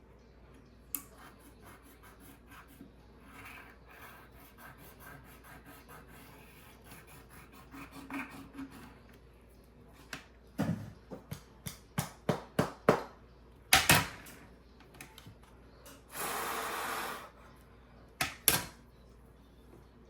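A small repair tool scraping old adhesive residue off a phone's frame: faint rubbing, then a quick run of sharp clicks and taps about halfway in, one scrape about a second long, and two more clicks near the end.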